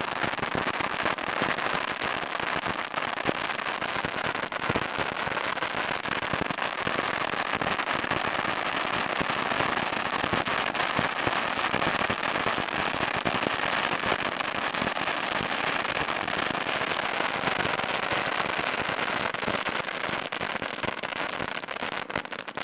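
Thousands of bottle rockets going off en masse: a dense, continuous crackle of pops and whooshes that holds steady and begins to thin out near the end.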